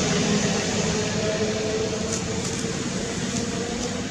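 Steady background hiss with a faint low hum under it and a few faint high ticks near the end.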